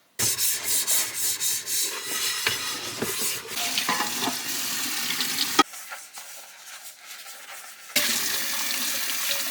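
Kitchen tap running into a sink, a steady hiss of water while dishes are washed. It cuts off abruptly after a click about halfway through, leaving a quieter stretch, then comes back on near the end.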